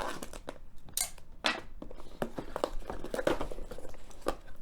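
Handling and opening a small cardboard box of cable stapler staples: irregular rustling, scraping and sharp clicks of cardboard and packaging.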